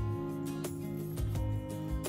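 Instrumental background music with held notes that change about one and a half seconds in.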